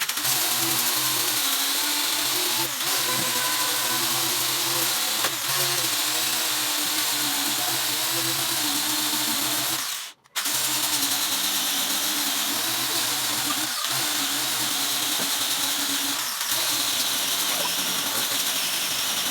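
A handheld electric power tool running steadily, its motor hum under a hiss. It stops for a moment about ten seconds in, then runs again.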